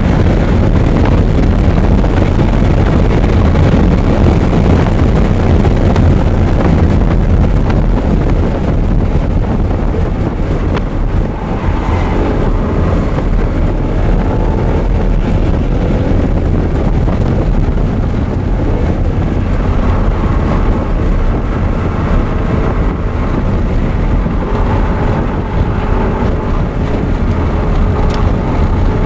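Audi R8's V8 engine running hard at track speed, heard on board under heavy wind buffeting and road rumble on the microphone; the engine's pitch shows faintly through the noise in the second half.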